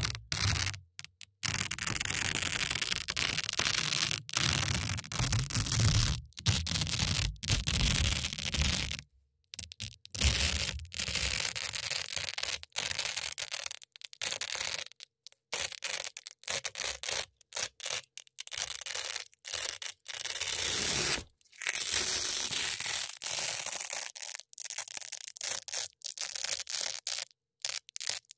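Velcro hook-and-loop strips scratched and rubbed close to the microphone in a run of crunchy strokes. The strokes are broken by short moments of silence and grow shorter and quicker in the second half.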